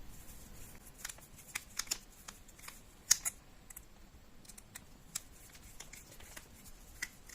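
Small, irregular clicks and ticks of plastic and metal as the neutral and live wires are fitted into the terminals of an extension cable plug, with the sharpest click about three seconds in.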